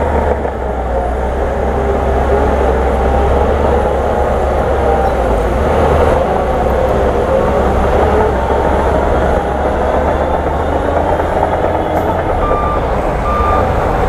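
Heavy diesel engines of a tipping dump truck and a crawler bulldozer running steadily, a dense low drone. Near the end a reversing alarm starts beeping, about once a second.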